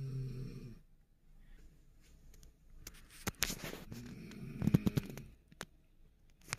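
Loud snoring in sleep: a pitched snore trailing off at the start, then from about three seconds in a longer, rattling snore broken by sharp clicks.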